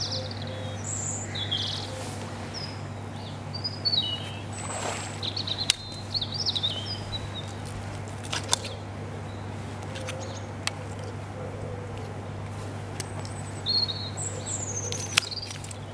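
Small birds chirping intermittently over a steady low hum, with a few sharp clicks scattered through.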